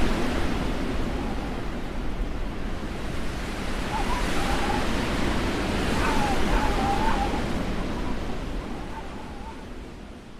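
Blizzard wind: a steady rush of wind noise that swells and eases, with a thin wavering whistle of wind in the middle, fading down near the end.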